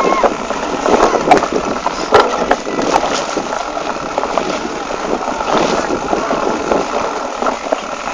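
Mountain bike riding over a rough dirt trail: a continuous rattling, rustling noise broken by irregular knocks and clatter from bumps, with wind on the microphone.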